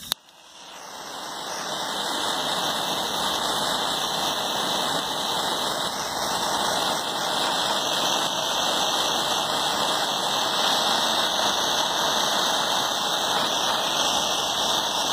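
Small hand torch burning with a steady hiss while it heats heat-shrink tubing over a wire splice. There is a click right at the start, and the hiss builds over the first couple of seconds.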